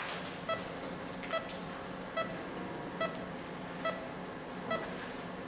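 Operating-room patient monitor beeping with the heartbeat, six short, even beeps a little under a second apart (about 70 a minute), over a steady equipment hum.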